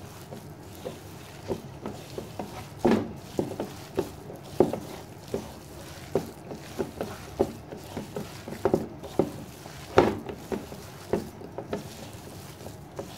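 A hand squishing and slapping chicken pieces through a thick gram-flour and spice marinade in a metal bowl: an irregular run of soft squelches and taps, several a second, with a few louder slaps.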